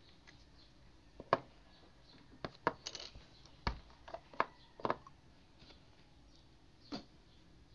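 A string of small sharp clicks and taps, about nine, bunched in the middle: small plastic model-kit parts and a glass bottle of plastic cement being handled on a desktop, the bottle's cap being taken off.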